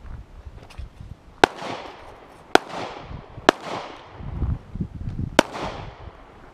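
Four handgun shots from a semi-automatic pistol, unevenly spaced: three about a second apart, then a pause and a fourth. Each crack is followed by a short ringing tail.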